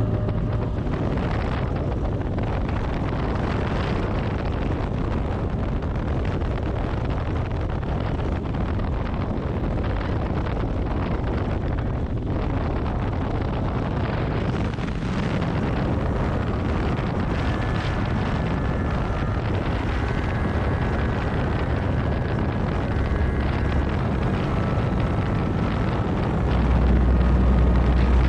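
Motorcycle engine running while riding, with heavy wind buffeting on the microphone, steady throughout and a little louder near the end.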